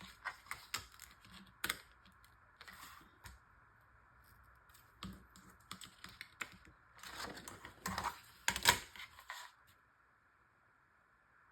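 Paper and craft tools handled on a work surface: irregular light clicks, taps and scrapes of card being lined up and worked, busiest and loudest a little past the middle, then stopping about two seconds before the end.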